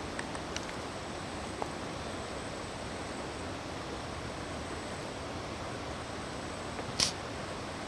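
Steady rushing of flowing river water, an even noise with no change, with a few faint ticks and one sharp click about seven seconds in.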